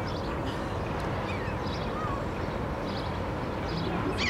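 Steady low background rumble, with a few faint, short, falling bird calls over it, a clearer one near the end.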